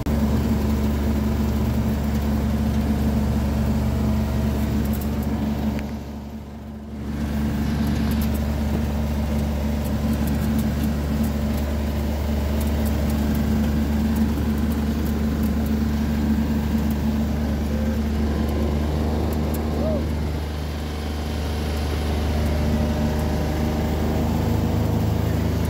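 Steady low drone of a motor vehicle's engine and road noise, which dips briefly about six seconds in and then carries on.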